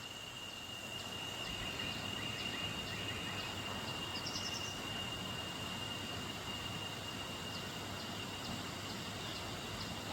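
Outdoor ambience: a steady high-pitched insect trill over a low hiss, with a brief higher chirp about four and a half seconds in.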